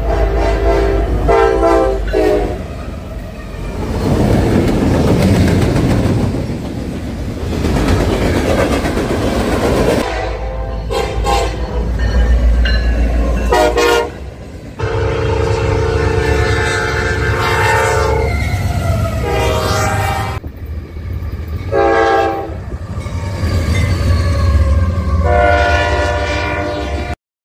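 Diesel freight locomotives passing close by, blowing their multi-tone air horns in repeated blasts, some short and some held for several seconds. Under the horns run the low rumble of the engines and the clatter of wheels on the rails. The sound changes abruptly a few times, as one clip cuts to the next, and stops suddenly near the end.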